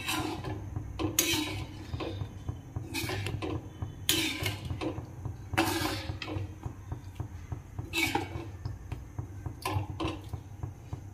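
A perforated metal ladle stirring rajma in thin gravy in a metal kadhai, scraping and clinking against the pan about every one to two seconds, over a steady low hum.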